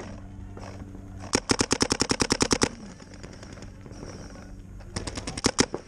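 Paintball marker firing rapid strings of shots, about ten a second: a string of about a second and a half, then a shorter string near the end.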